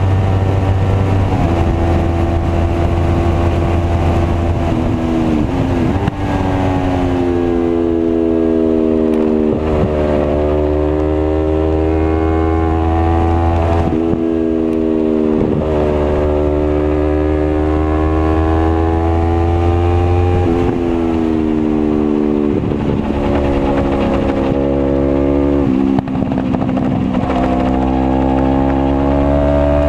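Sport motorcycle engine at high revs, heard close up from the bike, its note climbing under acceleration and dropping sharply at each gear change or braking point, several times over. Wind rush on the microphone runs underneath.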